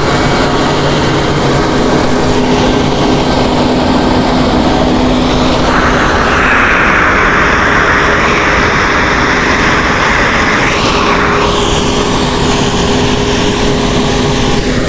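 John Deere 8320R tractor's diesel engine and a tractor-drawn KMC peanut combine running steadily as they pick up the windrow, with a rushing noise that swells for several seconds in the middle as the machine passes closest.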